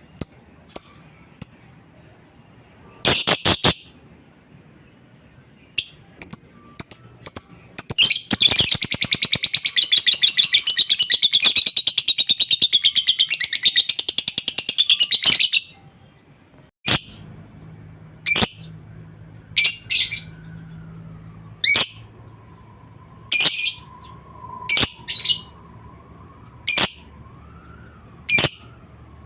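Lovebird calling: sharp high chirps, then about eight seconds in a long, fast chattering trill, the ngekek, that lasts about seven seconds, followed by single sharp chirps every second or two.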